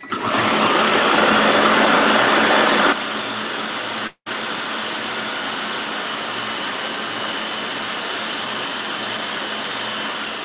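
Electric food processor chopping broccoli and other vegetables. The motor starts with a loud, rough chopping noise for about three seconds while the chunks are broken up, then settles into a steadier, quieter whir as the mix turns fine. It cuts out for a moment about four seconds in, then runs on.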